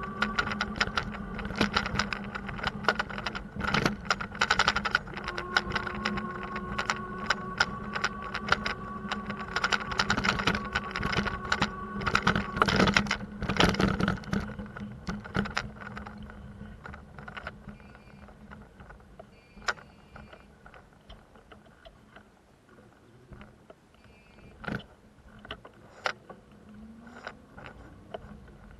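Bicycle ride over a rough surface: dense rattling and clicking over a steady mechanical hum for the first half, then much quieter, with scattered clicks and a few short high chirps.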